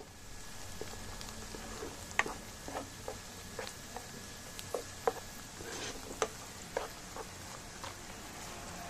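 Sliced onions frying in oil in a steel wok: a steady sizzle, with irregular knocks and scrapes of a spoon stirring them against the pan.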